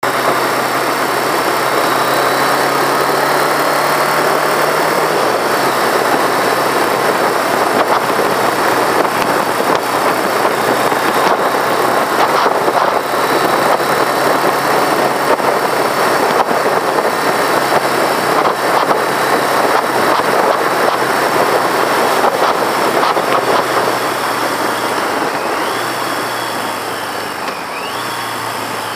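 1982 Yamaha XJ650's air-cooled inline-four engine under way, heard under heavy wind rush on the bike-mounted microphone. The engine note steps down about five seconds in, and the sound eases off over the last few seconds.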